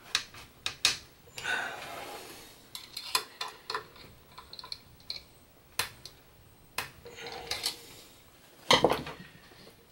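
Hex key clicking and scraping against a shaft coupling's set screws and an aluminium stepper-motor mount as the coupling is tightened: scattered sharp metallic clicks and taps, with a louder clatter near the end.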